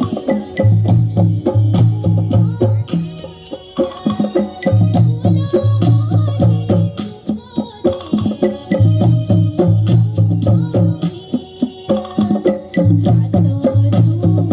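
Garhwali folk music with a steady hand-drum and percussion beat over a low bass figure that repeats about every four seconds.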